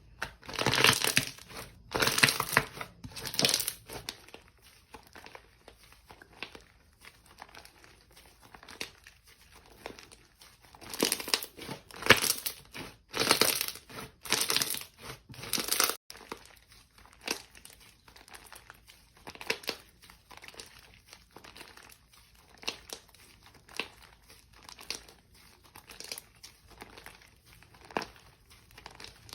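Slime being pressed and stretched by hand, crackling and popping in bursts. About halfway through it changes to sparser, scattered small pops and clicks.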